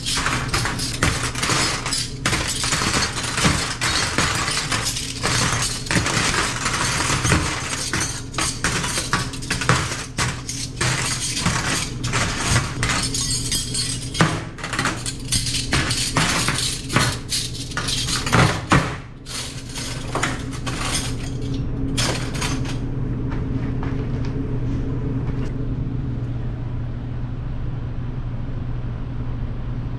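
Stainless-steel forks and spoons clattering and clinking as they are sorted by hand in a metal trough and dropped into a cutlery rack, over a steady machine hum. The clatter stops about three quarters of the way through, leaving only the hum.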